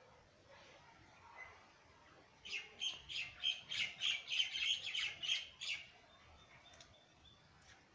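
A bird calling close by: a rapid run of about fourteen sharp, chattering notes, about four a second, starting a couple of seconds in and lasting about three seconds.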